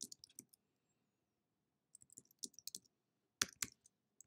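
Computer keyboard typing in short bursts: a few quick keystrokes at a time, with pauses of silence between the bursts.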